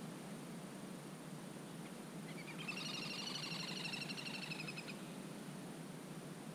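A bird gives one rapid, high-pitched trill of quickly repeated notes lasting about two and a half seconds. It starts about two seconds in and stops abruptly, over a steady faint background hiss and low hum.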